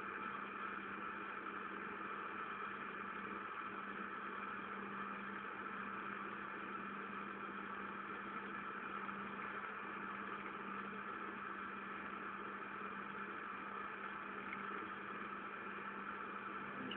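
Steady machine hum, unchanging, with a constant low tone and higher whine: workshop machinery left running, with no cutting going on.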